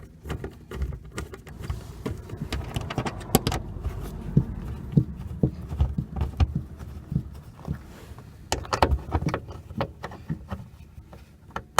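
Irregular clicks, taps and knocks of hard parts being handled and fitted while a car door speaker is installed, over a low steady rumble.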